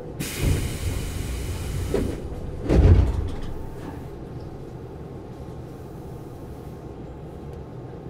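Pneumatic sliding passenger doors of a Tobu 10000-series electric train working: a sudden hiss of air about a quarter second in, then a heavy thud of the door leaves about three seconds in, over a steady low rumble.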